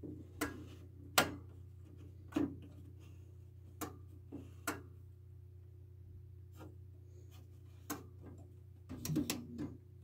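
Irregular sharp clicks and knocks from the rotary control knobs of an Airtemp window air conditioner being turned and handled, with a small cluster near the end. A steady low hum runs underneath.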